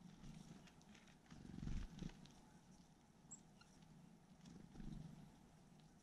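Near silence, with faint scattered clicks of blue tits and great tits pecking and gripping at a wire-mesh peanut feeder. Two low rumbles, the louder about a second and a half in and a weaker one near five seconds, and one brief high peep near the middle.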